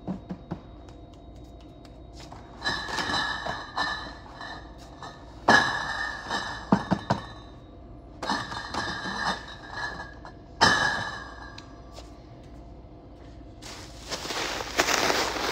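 Cardboard cases of glass beer bottles set down one after another, four times about two to three seconds apart; each lands with a knock, and the bottles inside clink and ring. Near the end comes a dense crinkling of plastic stretch wrap.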